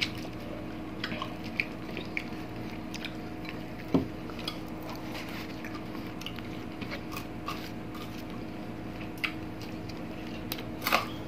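Close-miked eating sounds: soft chewing and mouth smacks with scattered small clicks as fried fish is picked apart by hand and eaten, over a faint steady hum. A short louder knock comes about four seconds in, and a quick cluster of clicks near the end.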